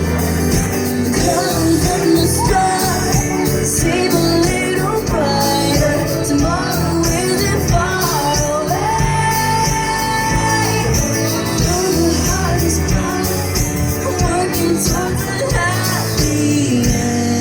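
Live pop band playing through a concert sound system, with a voice singing over the music and one long held note near the middle.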